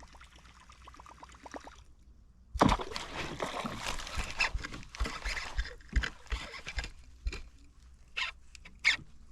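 A catfish strikes a topwater lure at the surface with a sudden loud splash about two and a half seconds in, followed by several seconds of churning, splashing water as the fish thrashes, then scattered sharper splashes and knocks near the end.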